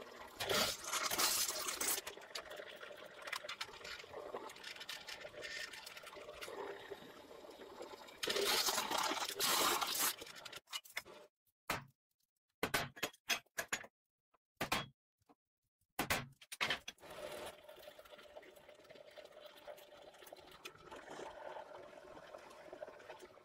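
Benchtop drill press running and a step drill bit cutting into steel square tube, with two loud spells of cutting. Then a series of sharp hammer blows on a punch against steel, with short silences between them. After that the drill press motor runs steadily again.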